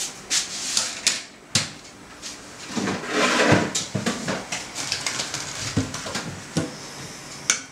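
Kitchenware handling: scattered clicks and knocks as a steel pot and its trivet are set down on a table, with a louder scraping clatter about three seconds in, then lighter taps as pieces of toast are moved on a plate.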